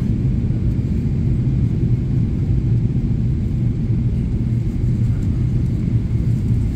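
Steady low rumble of cabin noise inside a Boeing 777-300ER on its approach to land, the engine and airflow noise heard through the fuselage. The 777-300ER is powered by GE90-115B turbofans.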